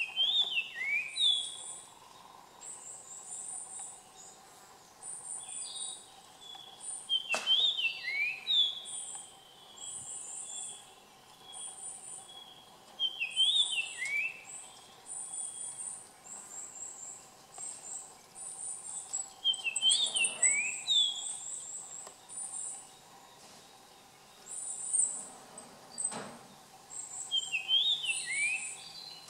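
Japanese grosbeak singing: a clear whistled phrase of a few gliding notes, repeated five times about every six or seven seconds. Short, high, thin trills repeat between the phrases.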